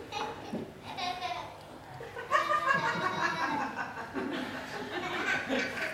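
Audience laughing and chuckling, the laughter swelling about two seconds in.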